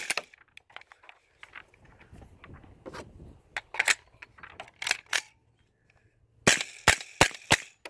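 Suppressed shots from an AR-type firearm fitted with a homemade Form 1 suppressor: one sharp shot at the start, fainter clicks and cracks in the middle, then four shots in quick succession near the end.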